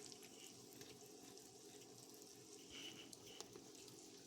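Faint, steady sizzle of a quesadilla frying in butter in a pan, with scattered tiny crackles.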